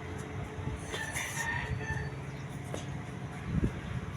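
A rooster crowing briefly about a second in, over a steady low hum, with a dull thump near the end.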